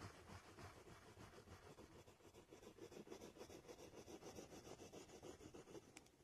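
Very faint scratching of a black drawing stick rubbed back and forth on sketchbook paper, shading in a dark area with quick, even strokes.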